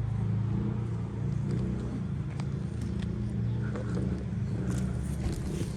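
Motor vehicle engine running close by, a low steady rumble, with faint small clicks in the second half.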